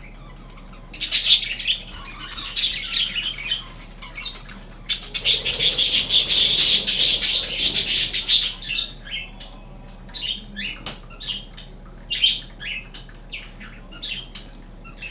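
Budgerigars chirping and chattering in short high calls, with a few seconds of dense wing-flapping or rustling midway.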